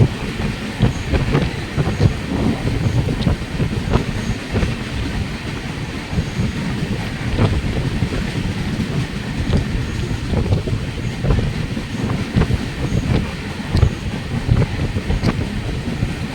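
A train running on rails: a steady low rumble with frequent irregular knocks and rattles from the wheels and carriages.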